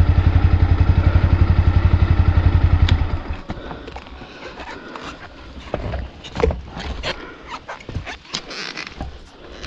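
Yamaha WR155R single-cylinder engine idling with a rapid, even pulse, then cutting out about three seconds in. Scattered knocks and scrapes follow.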